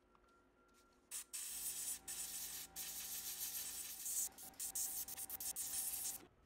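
Airbrush spraying paint: a short puff about a second in, then a steady hiss of air and paint with a few brief breaks as the trigger is let off and pressed again, stopping just before the end.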